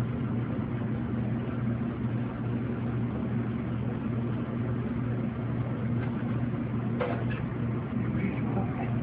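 Steady mechanical hum of commercial kitchen equipment, with a faint knock about seven seconds in.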